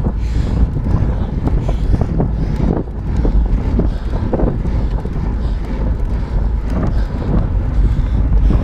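Wind buffeting the microphone of a fast-moving camera: a loud, gusting low rumble with irregular thumps.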